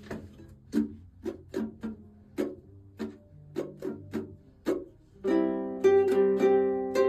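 Background music on a plucked string instrument: single picked notes, then strummed chords from about five seconds in.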